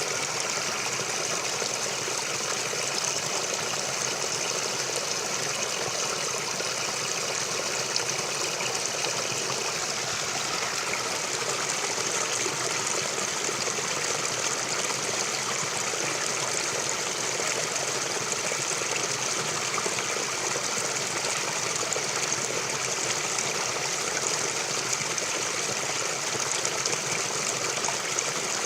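Forest stream flowing steadily over stones, a continuous rushing and trickling of water.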